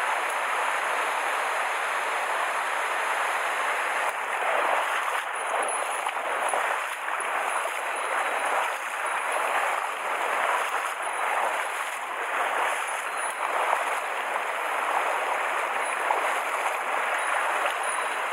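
Mountain stream water rushing over rocks, a steady loud rush that swells a little from about four seconds in.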